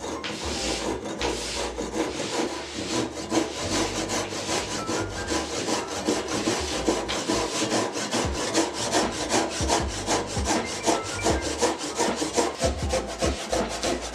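Hand saw cutting through a hard maple block, a steady run of quick, even rasping strokes as the blade works a miter cut.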